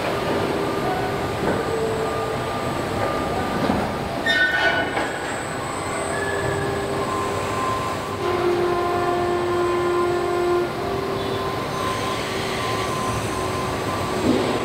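Car assembly plant machinery running: a steady rumble with several whining, squealing tones that come and go, and a short clatter about four seconds in.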